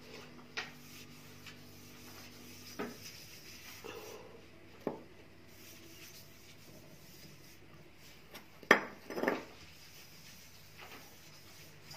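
Iron kadai being handled while oil-soaked cotton is rubbed around its inside: quiet scraping with a few scattered light metal knocks, the loudest two close together about nine seconds in.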